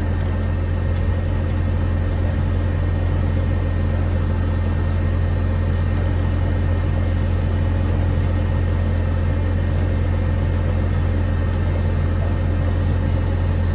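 A steady low mechanical drone, like an engine running at idle, holding the same level and pitch throughout.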